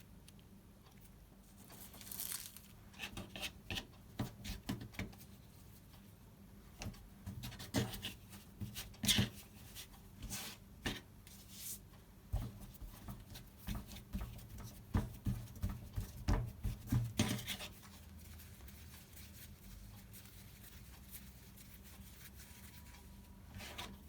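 Light taps, clicks and brief rustles of hands working with kitchen things at a counter, coming in quick irregular runs from about two seconds in until about seventeen seconds in, then only faint room tone.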